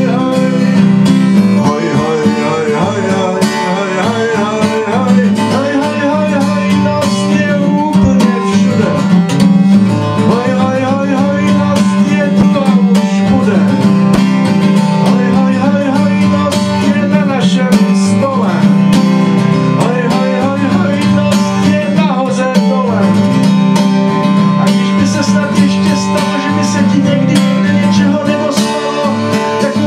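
Nylon-string classical guitar played in a steady chord accompaniment, with a man's voice singing over it without clear words.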